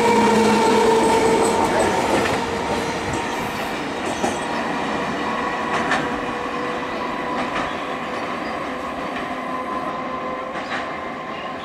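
Electric multiple-unit (EMU) local train pulling away and running off down the line, with a steady whine and the wheels clicking a few times over rail joints, the sound fading as it goes.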